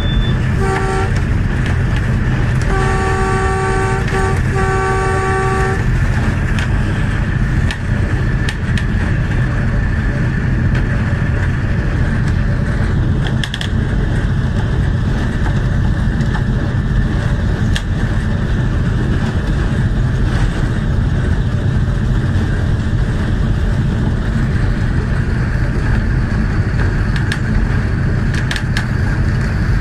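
ZCU-30 diesel locomotive's horn: a short toot about a second in, then two long blasts between about three and six seconds in. Under it, the steady rumble of the engine and wheels on the track, with a few sharp clicks later on.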